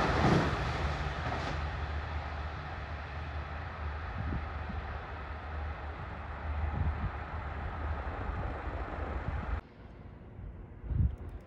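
A KiHa 85 series diesel railcar train pulling away, its Cummins diesel engines' low hum and wheel noise fading steadily as it recedes. The sound cuts off suddenly near the end to quieter background, with one brief thump.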